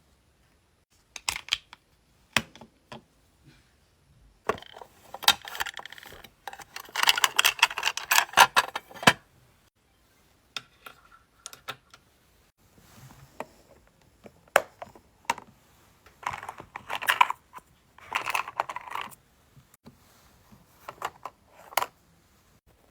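Small hard objects being handled, with irregular clusters of clicks and rattles separated by short quiet gaps.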